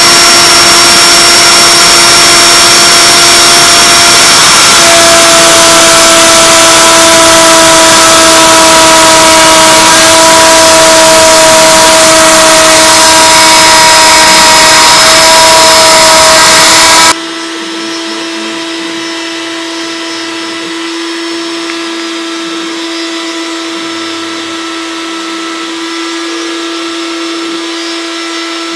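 CNC router spindle running at high speed and cutting through wood: a loud, steady whine over the hiss of the bit chewing the stock. About 17 seconds in it drops suddenly to a quieter steady whine of the same pitch.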